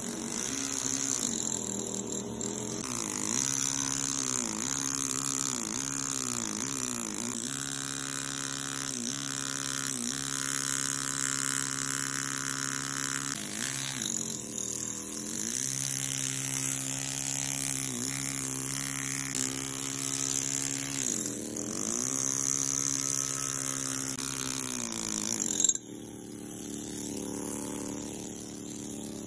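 Pneumatic air chisel hammering into stone, a steady buzzing with a hiss of air, its pitch dipping briefly every second or so as the chisel bites. It stops abruptly near the end.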